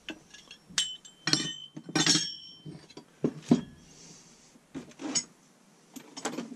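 Metal hole cutters clinking and knocking against each other and the bench as they are handled and set down, a few of the knocks leaving a short high ring.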